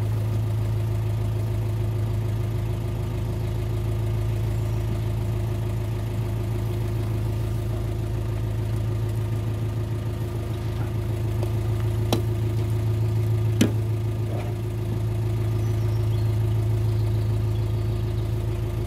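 Narrowboat's diesel engine running steadily at low canal speed, an even drone with a strong low hum. Two sharp clicks, about a second and a half apart, are heard a little past the middle.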